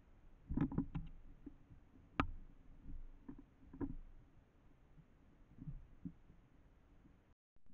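Irregular soft knocks and taps, about ten spread over the seconds, the loudest a sharp knock a little after two seconds in: a small bird pecking and moving about on a seed feeder close to the microphone.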